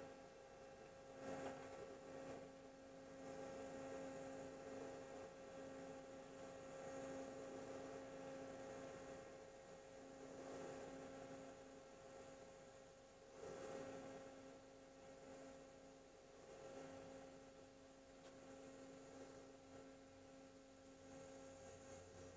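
Faint steady hum of a TIG welding arc laying a root pass into a pipe joint to close a blown-through hole. The lower part of the hum fades in and out every few seconds, and a few faint soft rushes of noise come and go.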